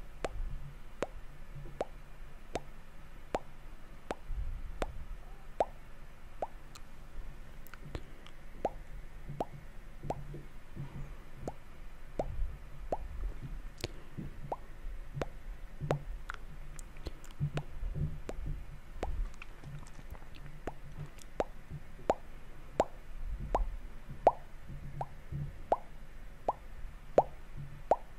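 Close-miked ASMR mouth sounds: a steady run of short, wet lip and tongue pops, about one or two a second.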